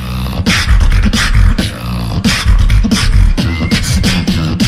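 Beatboxer performing into a handheld microphone over a PA: a fast beat of vocal kick drums with deep bass and sharp, snare-like clicks and hisses.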